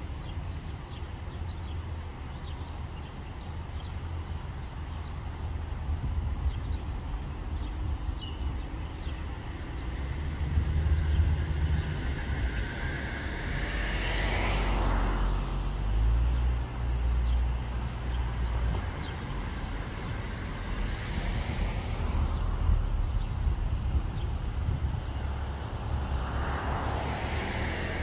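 Road traffic: vehicles passing by, three swells of tyre and engine noise that rise and fade, one around the middle and two near the end, over a steady low rumble.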